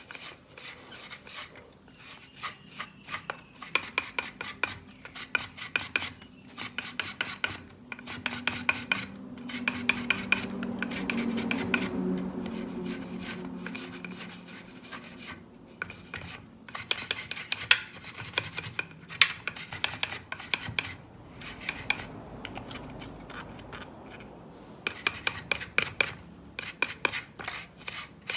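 Scrubbing on a dirty ceiling fan part, in runs of quick back-and-forth rubbing strokes with short pauses between them. Around the middle it turns into a steadier, lower rubbing for a few seconds.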